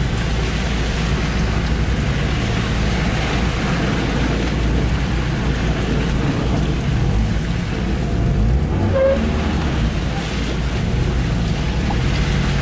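Honda CR-V engine working hard as the car drives through thick mud, heard from inside the cabin over a steady rush of tyre and mud noise. The engine note rises and falls with the throttle, and the driver reckons the exhaust is going.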